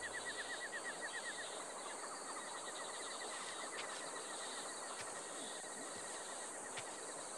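Jungle ambience: insects and birds calling over a steady hiss, with a fast run of short chirps, about ten a second, that fades out after a second and a half.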